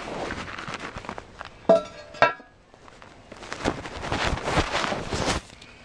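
Handling of a porcelain toilet tank: knocking and rustling, with two sharp, ringing clinks about two seconds in, like porcelain striking porcelain, then more scraping and rustling.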